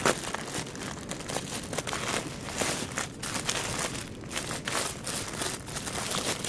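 Plastic packaging crinkling and rustling in a run of irregular crackles as a mail-order parcel is handled and unwrapped.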